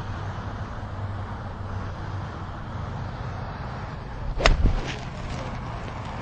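A golf swing: one sharp club strike about four and a half seconds in, with a low thump under it and a fainter click just after, over a steady low background rumble.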